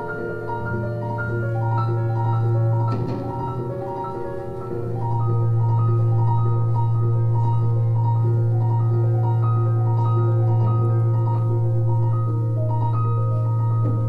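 Live jazz trio: a grand piano plays a repeating figure of short high notes over a long sustained bowed double-bass note, which eases briefly a few seconds in and then swells back.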